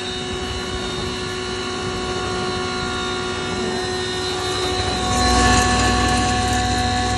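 Double-chamber flour grinding machine running steadily, a continuous hum made of several fixed tones; a deeper rumble swells about five seconds in.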